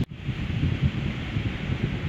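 Wind buffeting the microphone in uneven gusts, over a steady hiss of ocean surf. The sound drops out for an instant right at the start.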